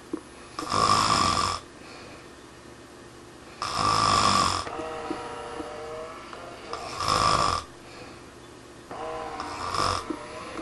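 A person snoring loudly, with a rasping snore about every three seconds, four in all, and softer wavering breath sounds between them.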